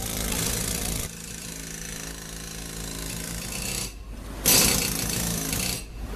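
Pneumatic chipping hammers breaking out concrete from a bridge abutment in two loud bursts, the first about a second long at the start and the second about a second and a half long near the end. Between the bursts a steady machine hum is heard.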